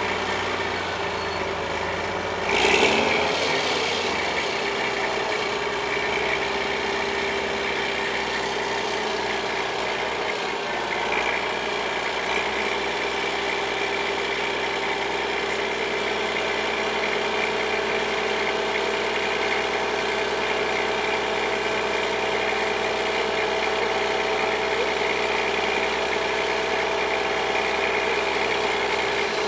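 Crane truck's engine running steadily at idle while it holds the load, with a brief louder burst about two and a half seconds in.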